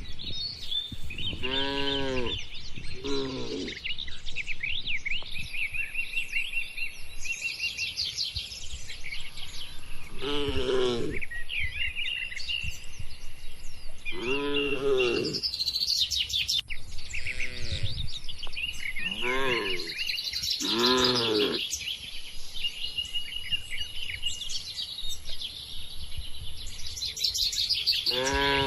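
Many small birds chirping continuously, with short pitched calls from cattle in the pen, each under a second and rising then falling, heard about seven times, twice in quick pairs.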